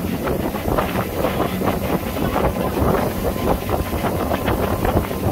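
Wind buffeting the microphone over the steady drone of a motorboat under way, with the rush of its churning wake.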